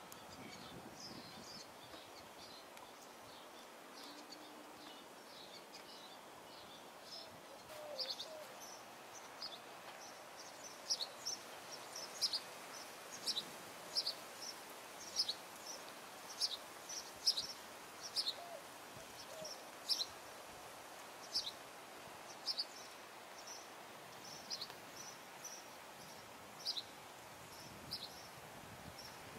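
A bird chirping: short, high chirps repeated about once a second, fainter at first and clearer through the middle, over faint steady background noise.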